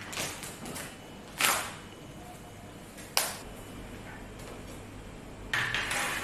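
Handling noises: a sharp knock about a second and a half in, another about three seconds in, and a short louder noise near the end, over low background noise.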